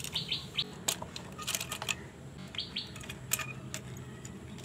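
Small clicks and knocks of a die-cast toy police car being handled and slid through a plastic car-carrier truck toy and down its ramp. Twice, near the start and about halfway through, a quick run of short high chirps.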